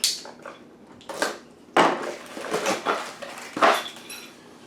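Small metal hardware and packaging being handled and set down: four sharp clinks and clatters, the last one ringing briefly.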